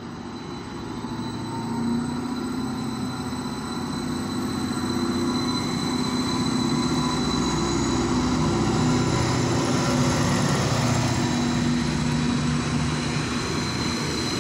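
Greater Anglia Stadler FLIRT multiple unit running past along the platform. Its running noise grows louder as it draws level and then eases a little, a steady low hum with a thin high whine over it.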